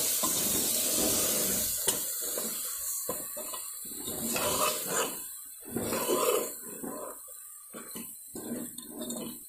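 A steel ladle stirs mutton and spice masala in an aluminium pressure-cooker pot, making irregular scrapes and knocks against the metal. For about the first two seconds a steady frying sizzle sits underneath.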